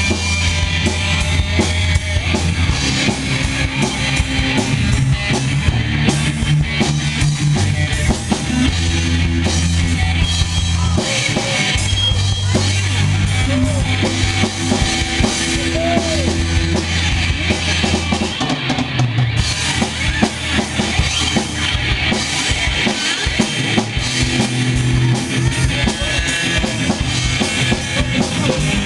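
A drum kit played live with a band, its bass drum and snare beating steadily over sustained bass-guitar notes.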